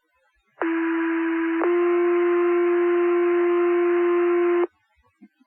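Two-tone sequential fire pager alert sent over the dispatch radio channel: a steady tone for about a second, then a second, slightly different tone held about three seconds, over radio hiss. It is the tone page that sets off the Wingham station volunteers' pagers for Engine 1.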